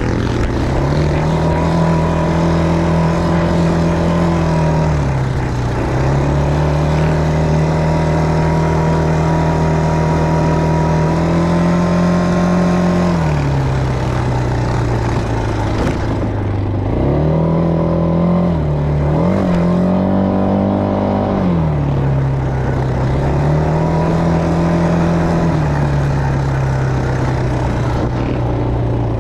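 ATV engine running under the rider, its pitch rising as the throttle opens and dropping back as it eases off, several times over.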